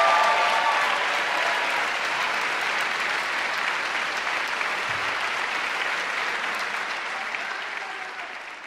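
Audience applauding, with a few voices cheering in the first second; the applause dies away near the end.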